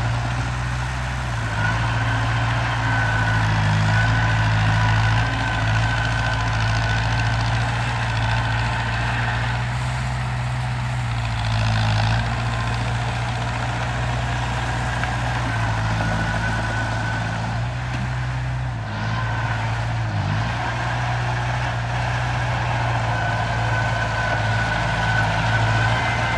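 Heavy construction machine's engine running steadily at low revs, a low hum that holds with only small dips, with a faint higher whine coming and going.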